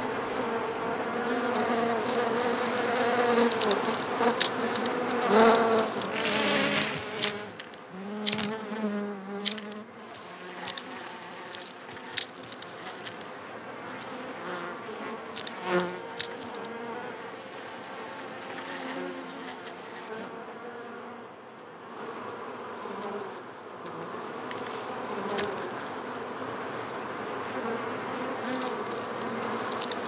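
Honeybees buzzing at close range, a wavering wing hum with scattered clicks in the first half, settling to a softer steady hum later on.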